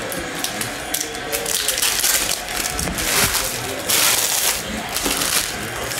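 Trading cards and foil packs being handled: scratchy rustling and crinkling that comes and goes in bursts, loudest about four seconds in.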